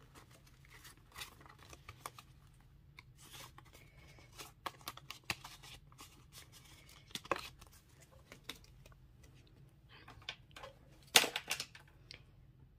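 Paper banknotes rustling and a clear plastic cash envelope crinkling as the bills are slid back inside, in faint scattered rustles and taps. The loudest rustle comes near the end.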